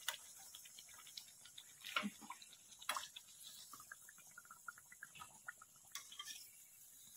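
Hot oil in a steel kadai faintly sizzling and crackling around frying eggplant-and-potato pakoras, with a few clinks of a metal slotted spoon against the pan as the fried pakoras are lifted out.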